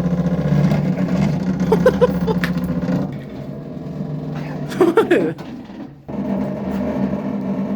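Steady electric hum from running appliances, a plugged-in massage device and the microwave it sits in. The hum drops in level about three seconds in, cuts out briefly near six seconds, then starts again.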